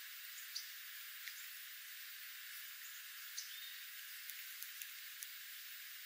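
Dark-eyed juncos foraging on seed-strewn gravel: a scattering of faint, short ticks and soft chips, with one brief call note about three and a half seconds in and a cluster of ticks near the end, over a steady hiss.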